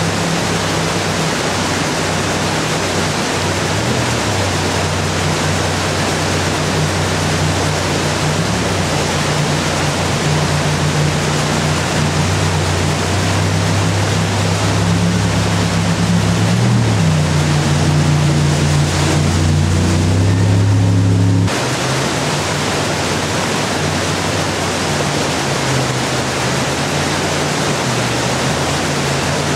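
Whitewater rapids rushing, with the low drone of a jet boat's engine running under it, its pitch stepping up and down as the throttle changes and growing louder before the sound cuts suddenly about two-thirds of the way through.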